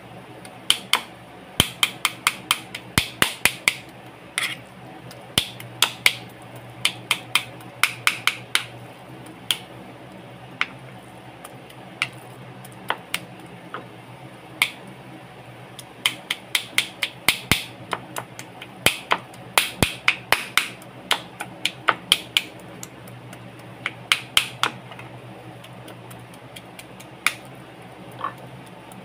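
Kitchen knife chopping raw chicken on a plastic cutting board: sharp knocks of the blade hitting the board in quick runs of several a second, with short pauses between runs.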